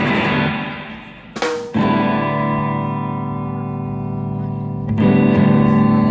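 Electric guitar through an effects unit, lightly distorted, playing chords that are left to ring: one fades out, a brief scrape follows, then a chord struck about two seconds in and another about five seconds in.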